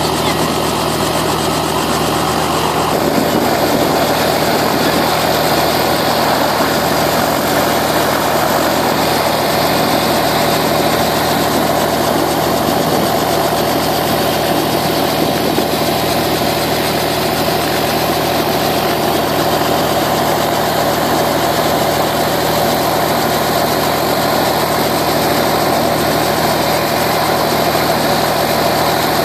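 Robinson R44 helicopter at ground idle: its six-cylinder Lycoming piston engine and turning main rotor running steadily, with a constant low hum.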